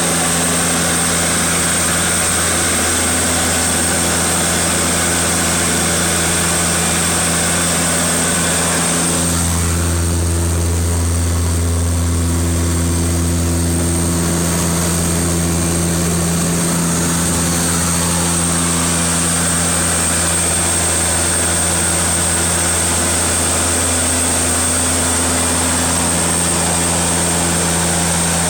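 Seaplane's engines and propellers droning steadily inside the cabin on the landing approach: a deep hum with a high, steady whine above it. About nine seconds in, the deep hum swells and the higher noise drops for several seconds before settling back.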